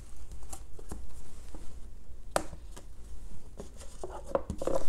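Trading cards being handled on a table: soft taps and light scrapes of card stock, with one sharper click about two and a half seconds in.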